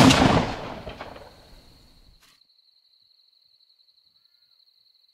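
Tail of a shot from a Ruger American Ranch rifle in 5.56 NATO: the report rolls away as an echo and dies out over about two seconds, then the sound cuts off suddenly.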